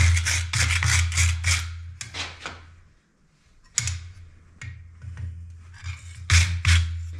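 Quick, repeated scraping strokes of a hand tool on metal, about four a second, in three runs with a short pause after the first.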